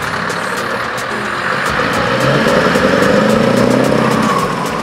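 Heavy truck's diesel engine pulling a low-loader trailer past, the engine note rising and getting louder for a couple of seconds, then easing off near the end.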